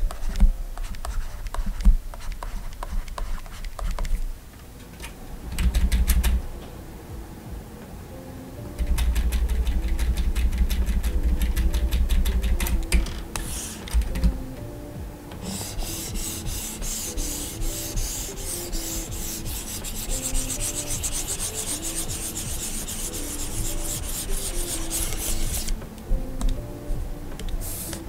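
Plastic stylus nib scratching and tapping on the screen of a Gaomon PD2200 pen display during handwriting, with a long run of rapid dense scratching in the second half. Soft background music plays underneath.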